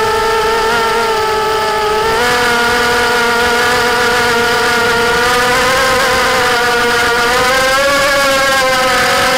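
Brushless motors (DYS 1306 3100kv) spinning GemFan 4045 props on a micro racing quadcopter in flight, heard from its onboard camera: a steady buzzing whine whose pitch sags slightly, steps up about two seconds in, and climbs gradually near the end as the throttle changes.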